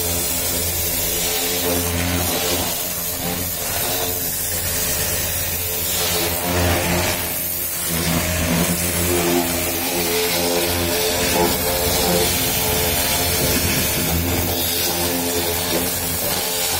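Pressure washer running, its motor-driven pump humming steadily while the water jet hisses against a car's tyre and wheel.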